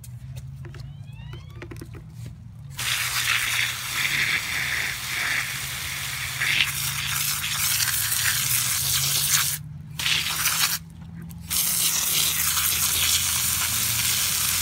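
Garden hose spray nozzle spraying a jet of water onto wood-chip mulch, starting about three seconds in, cutting off briefly twice near the middle, then spraying again. A steady low hum runs underneath.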